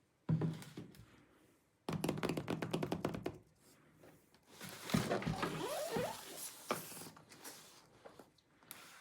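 Unboxing handling noise: a thump, then a quick run of clicks and rattling, then a rustle of packaging rubbing and scraping with short squeaks, as the box and wrapping of a MacBook Pro are handled.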